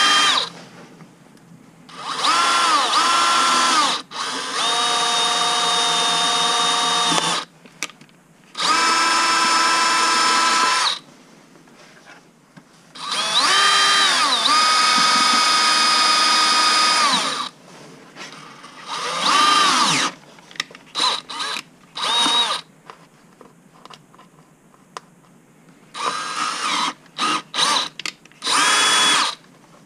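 Cordless drill boring holes in a black plastic trim panel, run in a series of bursts of a few seconds each. In each burst the whine rises as the motor spins up and falls as it stops. The second half has shorter trigger blips.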